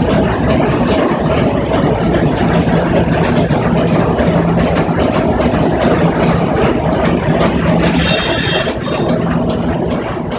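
The coal-fired steamship TSS Earnslaw's twin triple-expansion steam engines running, heard inside the engine room: a loud, dense mechanical clatter with a steady hum. About eight seconds in, a short high hiss lies over it.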